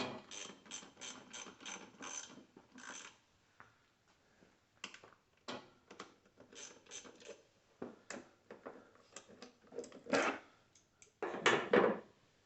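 Socket ratchet clicking in quick runs, about five clicks a second, as bolts are driven home, with two louder clattering knocks near the end.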